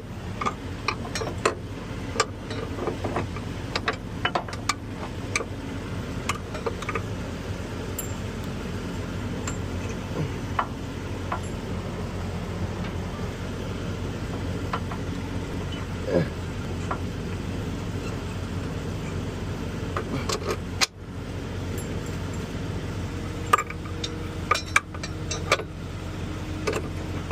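A vehicle engine running steadily in the background, with scattered short metallic clinks and clicks of tools and parts being handled.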